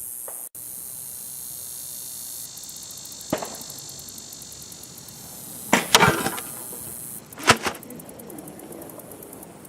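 Barnett Quad 400 crossbow being shot: loud sharp snaps about six seconds in, with another a second and a half later, and a fainter click before them. A steady high insect chirring runs underneath.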